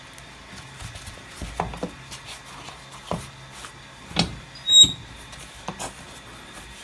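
A handful of knocks and bumps from handling a press while hot kydex is set and clamped for forming. The loudest knock comes about two-thirds through, with a brief high squeak. A faint low hum stops just before it.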